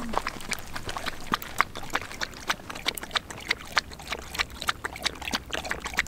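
A dog lapping water from a stainless steel bowl: quick, rhythmic wet laps, about four a second.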